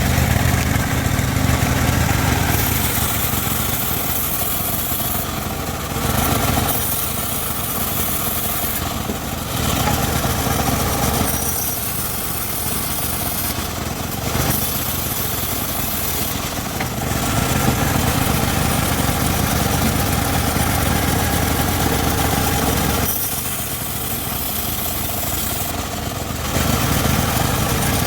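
Homemade circular-saw rig running and ripping teak, a steady machine drone whose loudness and tone shift every few seconds as the blade goes into and out of the wood.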